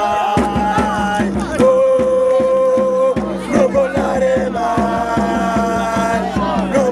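Music: singing voices holding long notes over a steady beat, with the low beat coming in just after the start.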